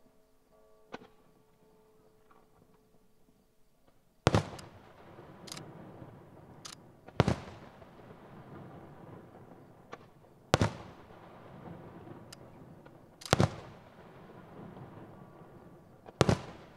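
Aerial firework shells bursting at a distance. After a few quiet seconds, five loud booms come about every three seconds, each trailing off in a rolling echo, with a few lighter cracks in between.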